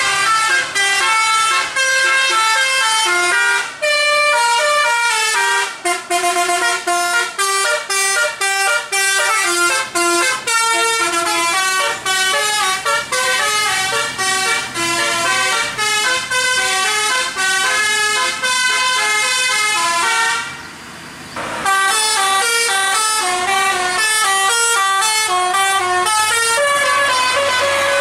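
Tour bus's Basuri 'telolet' multi-tone horn with roof-mounted trumpets, playing a fast tune of short stepped notes. It stops briefly about twenty seconds in, then starts another tune.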